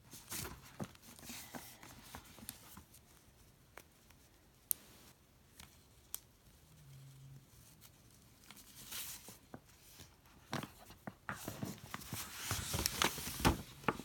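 Stiff paper shopping bag rustling and crinkling as hands untie its ribbon and reach inside to lift out a box, with scattered small clicks and taps; the handling grows louder and busier in the last few seconds.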